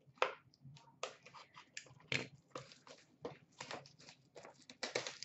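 Packaging of a sealed Panini Certified hockey card box crinkling and tearing as it is handled and opened: an irregular string of short scratchy rustles.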